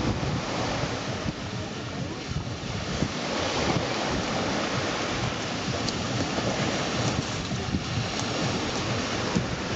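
Small sea waves breaking and washing up on the shore, with wind buffeting the microphone in uneven low gusts.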